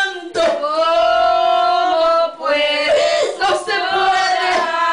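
Voices singing a slow hymn together, with long held notes; one note is held for nearly two seconds about half a second in.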